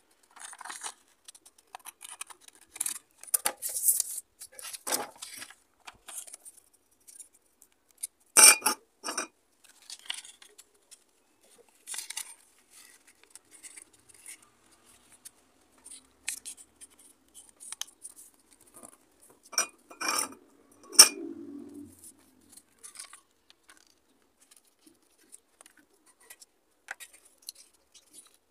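Scissors snipping through a sheet of paper, then the paper being handled and folded, with scattered rustles and a few sharp clicks and knocks, the loudest about eight seconds in and around twenty seconds in.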